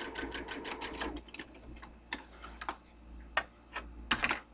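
Domestic electric sewing machine running a straight stitch, a rapid, even needle clatter at about eight stitches a second that stops about a second in. Then come a few separate clicks and knocks as the sewn fabric is handled and pulled out from under the presser foot.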